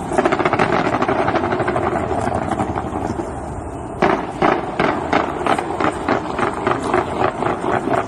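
Fireworks going off: a dense, rapid crackling that thins out over the first three seconds or so, then from about four seconds in a run of sharp bangs, a few a second.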